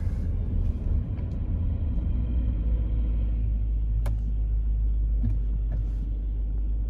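Steady low rumble of a car's engine and tyres heard inside the cabin while driving slowly on a dirt road, with one brief click about four seconds in.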